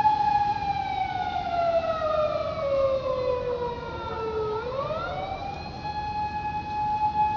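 Emergency vehicle siren wailing: a held tone that slowly falls in pitch for about four seconds, then sweeps quickly back up and holds again.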